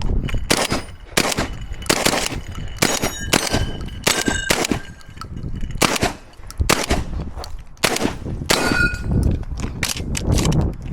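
Shotgun fired repeatedly, about a dozen shots at uneven spacing of half a second to a second. Several shots are followed by a brief metallic ring from hit steel targets. A quicker run of lighter clicks comes near the end.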